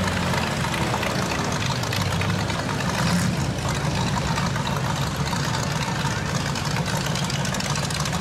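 Pontiac GTO's V8 engine idling steadily with a low, even tone.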